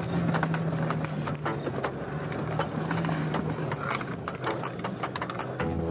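Jeep Gladiator EcoDiesel's 3.0-litre V6 turbodiesel running with a low, steady drone while the truck crawls over a rough trail, with a constant patter of clicks and knocks from the truck rattling over the rocks. Music comes in near the end.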